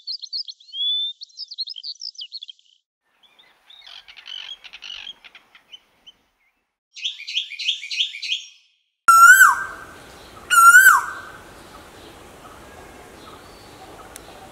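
Asian koels calling. First comes high, quick chattering and then a fast run of sharp repeated notes, of the kind the female gives. After that come two loud, lower calls about a second and a half apart, each held and then dropping at the end, of the kind the male gives.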